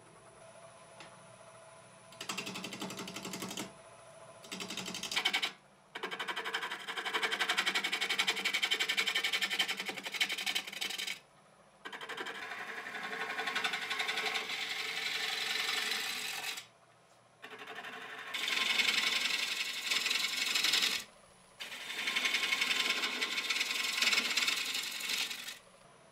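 Turning tool cutting a spinning sycamore blank on a wood lathe: a rough, rasping shaving sound in stretches of a few seconds, each ending with an abrupt cut to near quiet.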